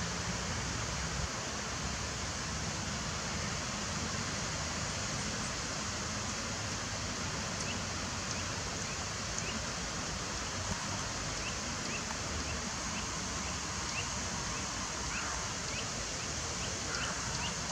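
Steady rushing outdoor background noise, with faint short high chirps repeating irregularly from about halfway through.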